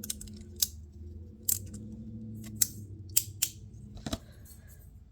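Small handheld fidget slider being worked back and forth, giving sharp, irregular clicks, about seven in five seconds.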